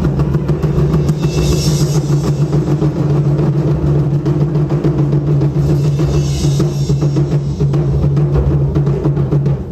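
Japanese taiko drum ensemble playing a fast, dense, continuous rhythm of deep drum strokes, with a high noisy wash twice, about 1.5 and 6 seconds in.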